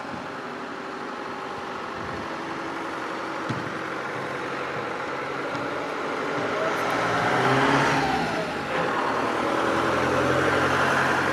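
Ford Transit ice cream van's engine running as the van drives toward the listener, growing louder to a peak about eight seconds in, with a brief dip just before nine seconds.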